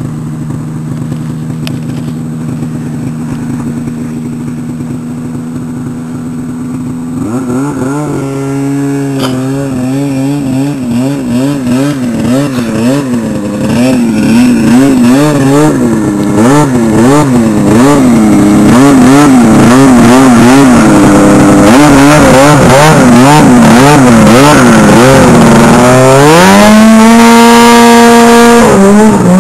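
Ski-Doo MXZ 700 snowmobile's two-stroke engine. It runs low and steady at first, then from about seven seconds in it revs up and down over and over, growing louder. Near the end it climbs steeply to a held high pitch at full throttle as the sled skims across open water.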